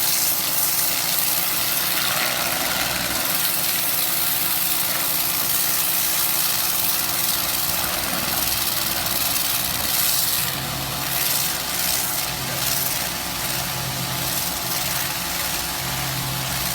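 Karcher K 2 electric pressure washer running: a steady motor-and-pump hum under a loud hiss of spray. In the second half a low note pulses on and off and the level wavers.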